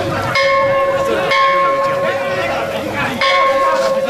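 A metal bell struck three times, each strike ringing on with a clear sustained tone.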